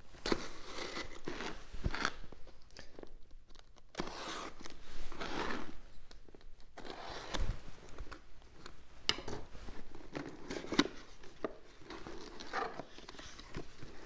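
Cardboard shipping box being opened by hand: packing tape torn off and cardboard flaps scraping, rustling and crinkling in irregular bursts, with short taps and clicks as the box is handled.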